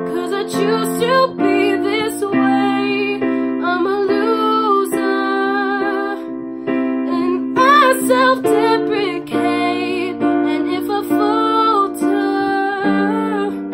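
A woman singing solo over held piano chords, her voice sliding and wavering through long sung phrases.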